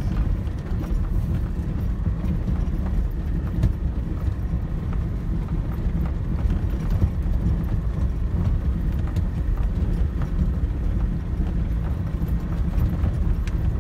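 Double-cab pickup truck driving over a rough stony dirt track, heard from inside the cab: a steady low rumble of engine and tyres with a constant scatter of small clicks and knocks as the tyres roll over loose stones.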